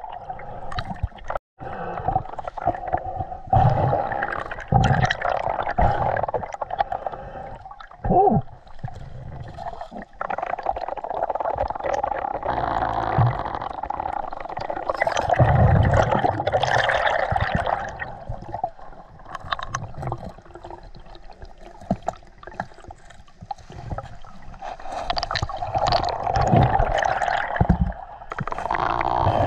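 River water heard underwater through a submerged camera: a steady rushing with gurgling and bubbling, broken by dull knocks and thuds as hands move over the rocky bottom.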